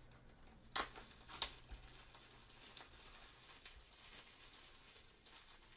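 Faint handling of a cardboard trading-card box and its clear plastic wrapping: two sharp clicks about a second and a second and a half in, then light, scattered crinkling and rustling.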